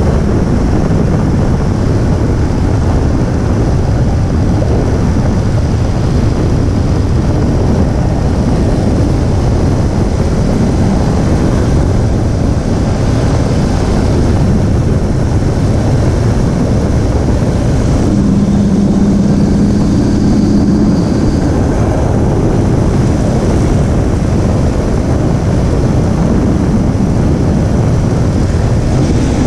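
2017 Infiniti Q50 under way: steady, loud road and wind noise. About 18 seconds in, a steady low tone is heard for about three seconds.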